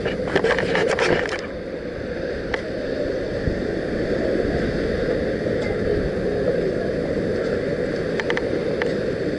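Steady low rush of ocean surf and wind, with a burst of crackling in the first second and a half.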